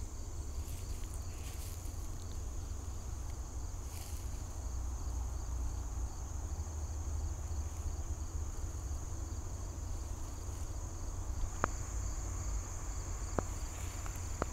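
Steady outdoor insect chorus, a continuous high-pitched trill with an evenly pulsing chirp just beneath it, over a low rumble. Two short sharp clicks sound near the end.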